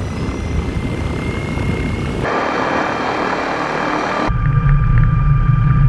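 eKub electric light aircraft's propeller turning under electric-motor power: a steady thin whine over a rush of air. The sound changes abruptly twice as shots cut; the rushing noise is loudest in the middle part, and a deeper steady hum with a whine takes over near the end.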